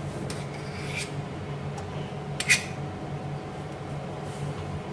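A spoon scraping out ghee and dropping it into a nonstick frying pan, with a few faint clicks and one short, sharper scrape about two and a half seconds in, over a low steady hum.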